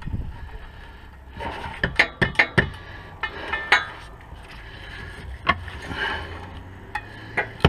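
Metal hand tools clinking and scraping against the car's underbody parts, a run of sharp knocks about one and a half to four seconds in and a few single clinks later, over a steady low hum.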